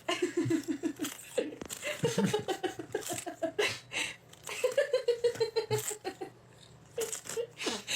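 A person laughing in rapid, pulsing bursts, three main runs of quick laughs.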